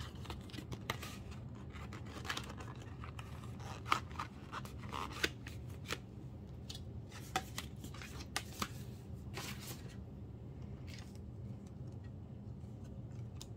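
Photocards and album packaging being handled: scattered rustles and sharp clicks, the sharpest about four, five and seven seconds in, over a low steady hum.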